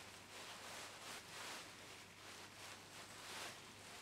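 Faint, soft rustling and scraping from work gloves and a T-handle insertion tool as it is turned by hand, screwing a Time-Sert solid thread insert into a tapped hole in an aluminium block. The swells recur every half-second to second with each turn of the handle.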